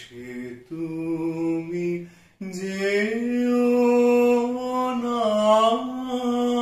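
A man singing a slow Bengali song unaccompanied, in long held notes with small ornamental turns, a brief breath about two seconds in before a long sustained phrase.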